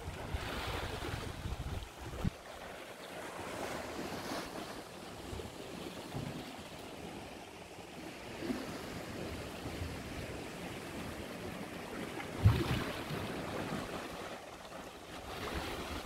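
Sea washing against a rocky shore, with wind on the microphone. A couple of short low thumps break through, the loudest about three-quarters of the way through.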